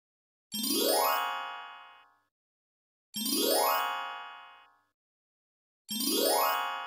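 Transition sound effect: a quick rising chime glissando with a sparkling shimmer, fading out over about a second and a half. It plays three times, with a gap of silence between each one.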